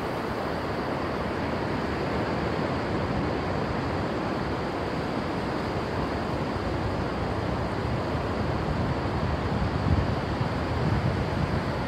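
Steady rush of surf washing up the beach. Wind buffets the microphone in a couple of low gusts near the end.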